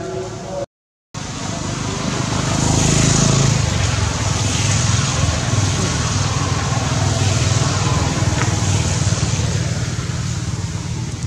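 Loud steady rumble with a rushing hiss that swells about two seconds in and slowly eases; the sound cuts out completely for a moment under a second in.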